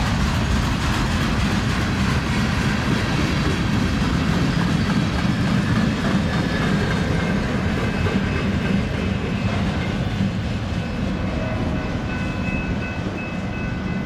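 Freight train cars rolling past: the steady rumble and clatter of steel wheels on the rails, easing off slightly over the last few seconds as the end of the train goes by.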